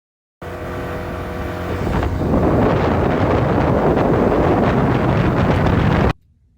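Boat motor running under way, steady at first, then louder and rougher with wind on the microphone about two seconds in. The sound starts and stops abruptly.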